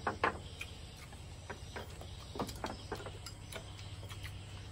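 Light, irregular clicks and taps of utensils and dishes at a meal, over a steady low hum.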